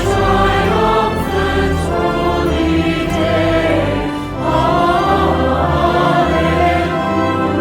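A group of voices singing a hymn together in sustained phrases, with a brief break between phrases about four seconds in.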